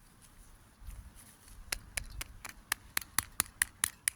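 A quick, even series of sharp taps, about four a second, beginning a little under halfway through, with a low handling rumble just before and under the first of them.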